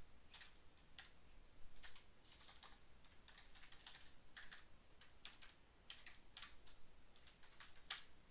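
Faint, irregular keystrokes on a computer keyboard, a few a second, with uneven pauses between them.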